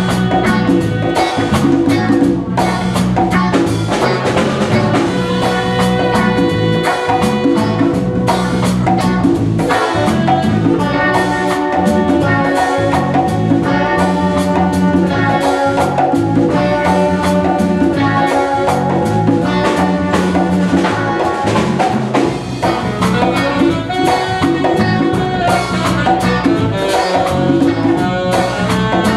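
Small jazz band playing live: tenor and alto saxophones over hand drums and guitar, the music going on without a pause.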